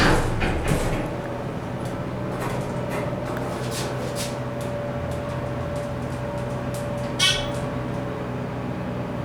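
Dover oildraulic elevator riding with a steady electric hum from its hydraulic pump unit. A sharp knock comes at the start, and a brief high squeak about seven seconds in.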